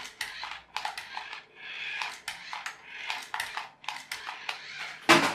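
Battery-powered radio-controlled toy train driving on a hard surface, its small motor whirring in bursts amid rapid plastic clicks and clatter as it is driven about and does wheelies, with a loud knock near the end.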